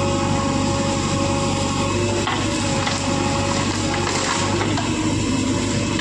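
Diesel engine of a JCB 3DX backhoe loader running steadily under load, with scattered knocks and clatter as gravel is tipped from its front bucket into a steel tractor trolley.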